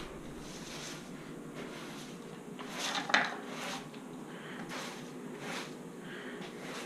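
Quiet rustling and scraping as grass and leaves are gathered up off the concrete, with a few soft knocks, the loudest about three seconds in.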